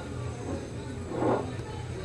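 Quiet background music over a steady low hum, with one soft swell of sound just past the middle.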